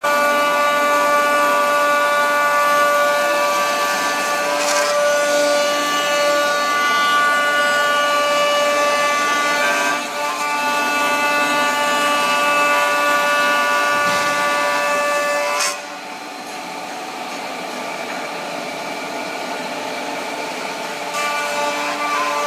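Multi-head CNC router spindles running with a steady high whine while cutting wood, with a steady cutting noise underneath. The sound drops somewhat in level about two-thirds of the way through.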